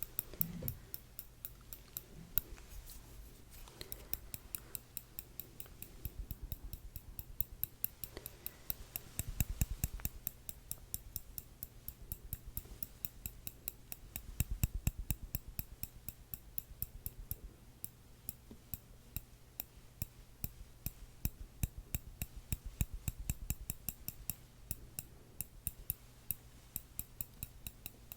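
Metal tweezers tapping and clicking close to the microphone: a fast, even run of light clicks, several a second, with a few soft low bumps in between.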